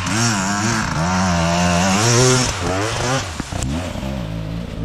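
Dirt bike engine revving hard up a steep hill climb, its pitch rising and falling repeatedly with the throttle. It is loudest about two seconds in, then drops back.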